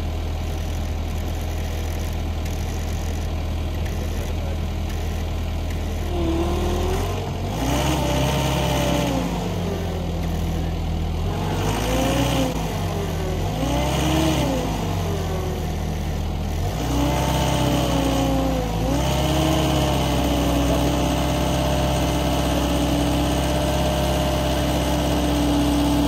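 Diesel engine of a stuck John Deere 325G compact track loader running under a recovery winch pull. From about six seconds in the engine revs up and down several times as it tries to drive free, then holds a steady higher speed near the end.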